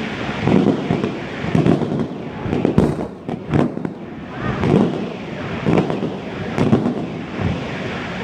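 Fireworks shells bursting in irregular succession, a boom about every second with crackling between the bursts.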